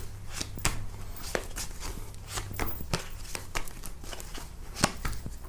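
A deck of tarot cards shuffled by hand: a run of soft, irregular clicks as the cards slap and slide against each other, with one sharper click near the end.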